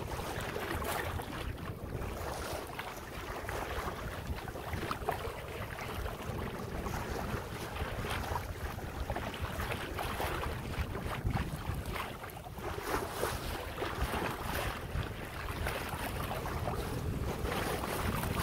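Water washing along the hull of a Hunter 356 sailboat under way, with wind buffeting the microphone as a steady low rumble.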